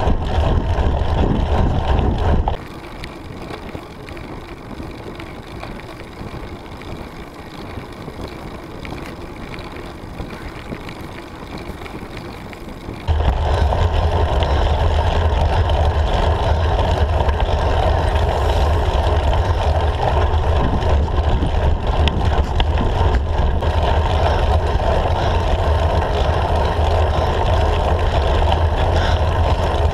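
Wind buffeting the microphone of a handlebar-mounted camera on a road bike: a steady low rush that drops away for about ten seconds from a couple of seconds in, then comes back as strong as before.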